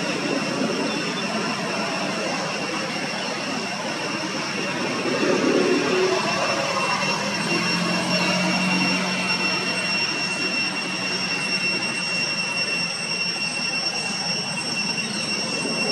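Steady outdoor background noise: a broad, even rushing sound with a constant thin high-pitched whine over it.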